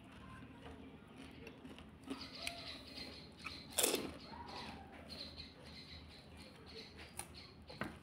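Close-up eating sounds of pani puri: small crackles as a crisp puri shell is broken open and filled, then a loud crunchy bite about four seconds in as a whole filled puri goes into the mouth, followed by chewing and wet mouth sounds.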